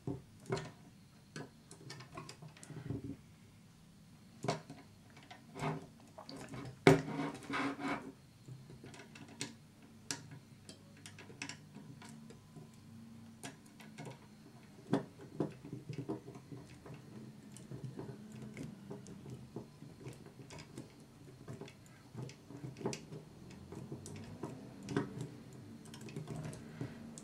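Small hand screwdriver driving tiny screws into a model truck's chassis frame: irregular light clicks and ticks of the tool and parts, with a cluster of louder clicks about seven seconds in.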